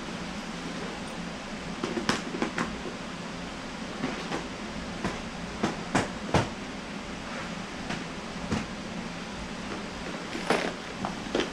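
Handling of a soft-sided fishing tackle bag and its clear plastic tackle boxes: scattered clicks, knocks and rustles, with a sharper pair of knocks about six seconds in and again near the end, over a steady low hum.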